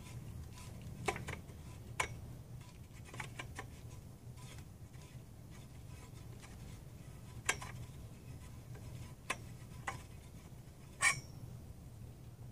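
Scattered light clicks and taps of the lamp's flex arm and pole being handled and unscrewed by hand, the loudest near the end, over a steady low hum.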